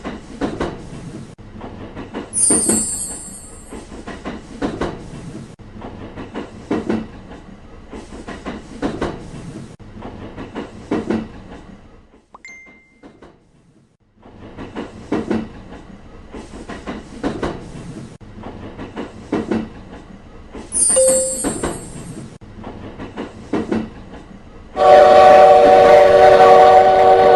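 Train running on the rails, its wheels clacking over rail joints about once a second, with a short pause partway through. Near the end a loud train horn sounds, a chord of several tones held for about three seconds.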